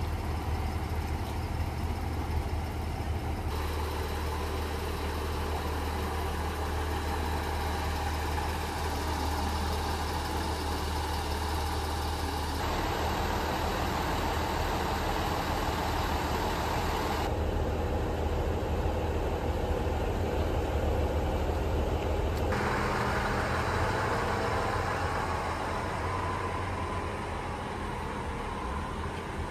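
Diesel railcar of the KiHa 100 series idling at a standstill, a steady low hum under engine noise. The sound changes abruptly a few times.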